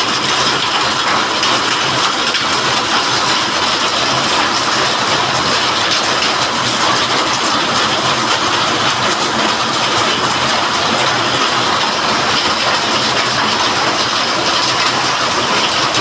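Heavy rain pouring down, a loud steady hiss of dense drops.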